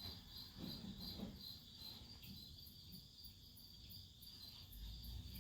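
Faint insect chirping, a steady high pulsing trill, with a few faint low knocks in the first second or so.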